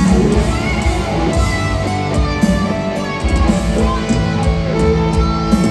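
Metalcore band playing live, loud: distorted electric guitars hold sustained chords over pounding drums, recorded on a phone.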